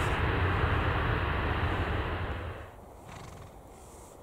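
Jet engines of a Ryanair Boeing 737 roaring as it rolls out after landing. The sound cuts off abruptly a little over halfway through, leaving a much quieter background.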